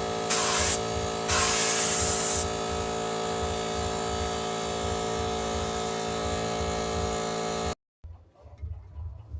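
A 24-litre Motomil air compressor running with a steady hum, with two short blasts of hissing compressed air in the first two seconds or so. The sound cuts off abruptly a little before the end.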